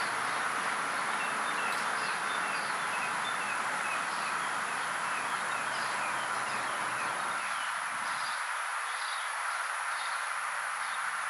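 Steady outdoor background noise with small birds chirping in short, high calls about once or twice a second.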